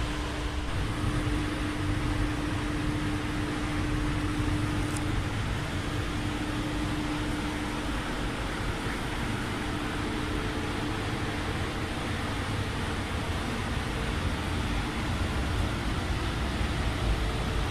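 Paint spray booth ventilation running: a steady rush of moving air with a faint steady hum underneath.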